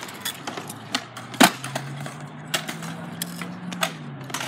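Stunt scooter wheels rolling and clacking on a concrete skatepark bowl, with scattered sharp clacks and knocks, the loudest about a second and a half in. A low drone rises slightly under them from then until near the end.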